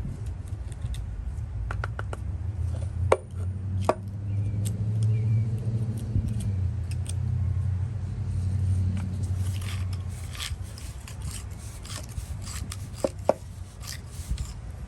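Scraping and rubbing at packed grime inside an old ratchet's mechanism. Sharp metal clicks come about three and four seconds in and twice more near the end, over a steady low hum.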